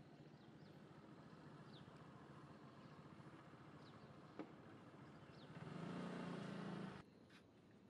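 Faint outdoor ambience: a steady low hum with a few short, falling, high chirps. About two-thirds through, a louder low rumbling noise swells up and then cuts off suddenly.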